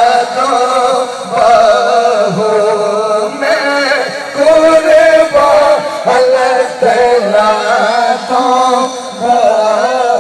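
Devotional music: a man singing long, wavering held notes over instrumental accompaniment.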